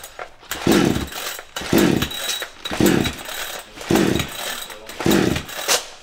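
Petrol chainsaw being pull-started: about five hard yanks on the recoil starter cord, roughly one a second, each turning the engine over briefly. The engine does not catch and run between pulls.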